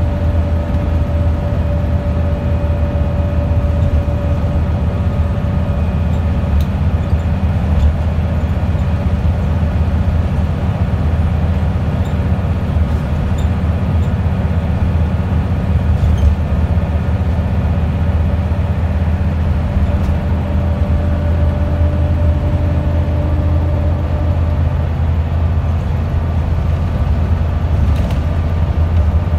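Inside a Wright Scania Solar single-deck bus under way: the diesel engine's steady drone mixed with road noise, and a few light rattles from the body.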